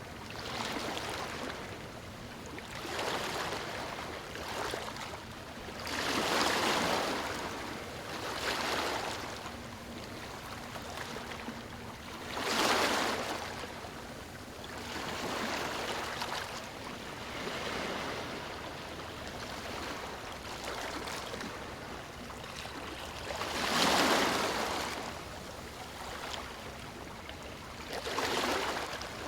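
Sea waves breaking on stones, washing in and out in a string of surges a few seconds apart, the loudest near the middle and again toward the end.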